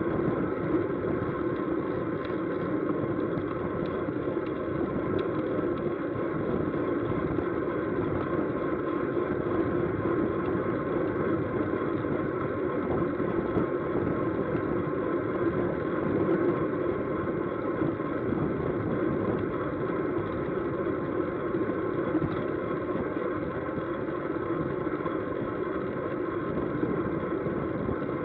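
Steady rush of wind and road noise on a camera riding with a fixed-gear bicycle at racing speed, about 19 to 29 mph, with the hum of tyres and chain underneath.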